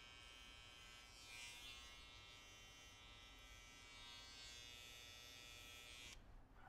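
Faint, steady electric buzz, like a small motor running, that cuts off suddenly about six seconds in.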